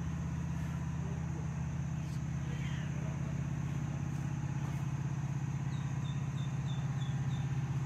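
A steady low motor hum with a fast, even pulse. About six seconds in, a quick run of six short, high chirps.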